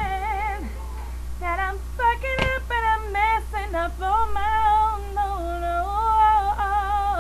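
A woman singing solo in an R&B style: quick melismatic runs with vibrato, settling into long held notes in the second half. A steady low hum runs underneath, and there is a single sharp click about two and a half seconds in.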